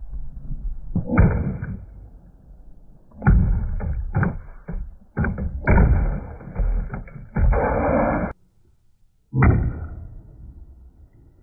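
Plastic drink bottles filled with liquid, dropped from a stepladder, hitting a concrete driveway with thuds, several times over, with a low rumble between the drops.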